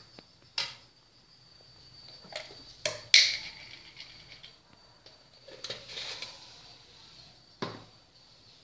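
Metal spatula and fork knocking and scraping against a steel wok while stir-frying beef: several sharp clanks, the loudest a little past three seconds in with a short ring.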